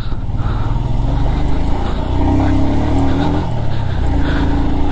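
Motorcycle engine pulling hard under throttle while overtaking a car on a loose gravel track, over a heavy low rumble of wind and road noise. The engine note rises and holds about two seconds in, then again near the end.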